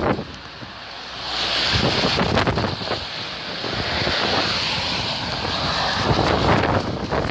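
Storm wind buffeting a phone's microphone in strong gusts, a rushing noise with a deep rumble. It drops briefly just after the start, then picks up again about a second in.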